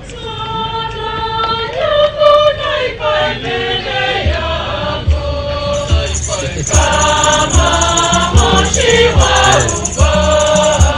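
A choir singing a gospel-style hymn in chorus. A steady drum beat comes in about four seconds in, and a high jingling hand percussion, like a tambourine, joins about six seconds in.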